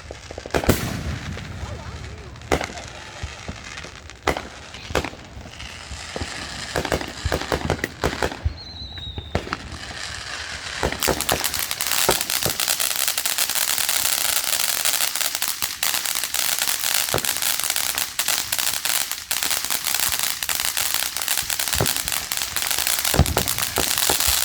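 Fireworks going off. Separate sharp bangs and pops come first, then from about eleven seconds in a dense, continuous crackling runs on.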